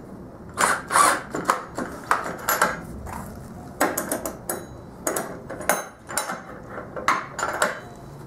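Irregular knocks and metallic clanks as a steel workbench caster bracket is handled and set against a wooden table leg.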